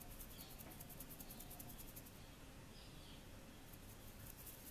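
Salt shaker shaken over a bowl of beaten egg: faint rapid ticks of salt grains, a run of about two seconds, then a second run near the end.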